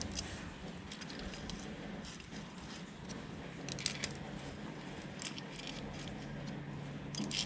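Small metallic clicks and clinks of bolts and washers being handled and turned in with a T-handle hex key, with a sharper clink about four seconds in and another near the end. A faint steady low hum runs underneath.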